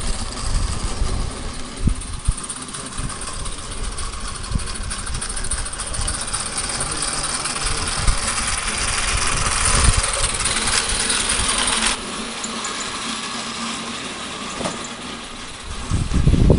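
Small live-steam garden-railway locomotive hissing steadily, with low rumbling underneath; the hiss cuts off suddenly about twelve seconds in and a fainter hiss carries on.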